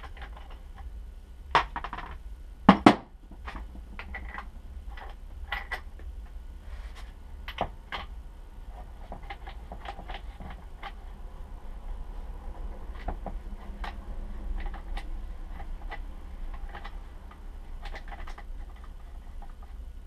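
Hand tools and metal fork parts being handled on a workbench during a bicycle suspension fork teardown: scattered light clicks and knocks. One sharp knock comes about one and a half seconds in, and two louder ones follow about a second later, all over a steady low hum.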